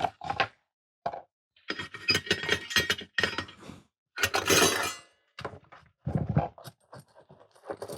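Clinks, knocks and scraping of tools and small hard objects being handled and set down on a workbench during soldering work, in irregular bursts with the longest about halfway through.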